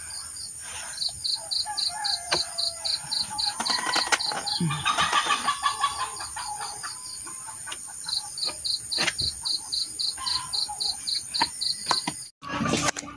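Rural outdoor background of insects: a steady high buzz and a pulsed chirp about four times a second, with a chicken calling in the middle.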